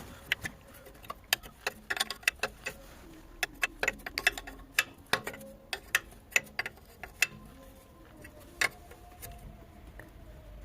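Irregular light clicks and taps, many of them scattered unevenly, with no engine running.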